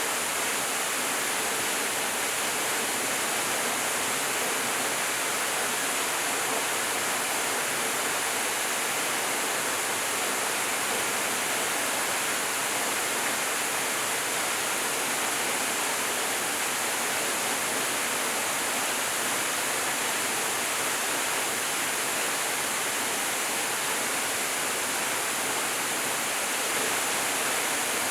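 Stream flowing in the monsoon: a steady, unbroken rush of water, bright and hissy rather than deep.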